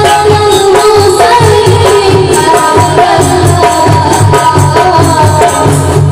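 Salawat sung through a loud sound system, a held melodic voice line over a steady drum beat and percussion.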